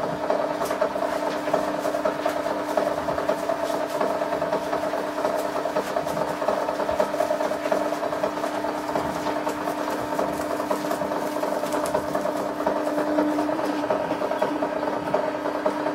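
Sharp XE-A203 cash register's receipt printer running without a break while printing a long electronic journal report: a steady mechanical whirr and chatter of the print mechanism and paper feed.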